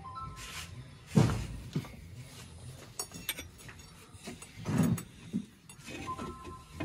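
Scattered knocks and clunks of metal parts and tools being handled at an open clutch bell housing. The loudest comes about a second in, and another near five seconds.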